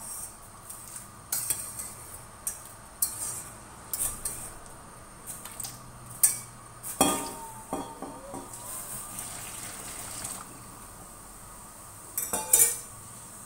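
Kitchen clatter: utensils and dishes clinking and knocking now and then, with a louder ringing clank about seven seconds in and a quick run of clinks near the end.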